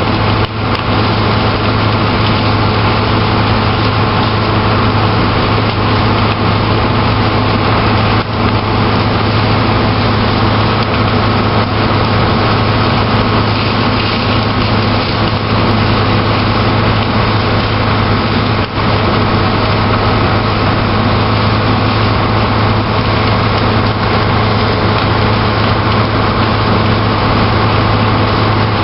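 A fire engine running steadily to drive its pump, a loud constant drone with a steady low hum, over the noise of a house fire burning.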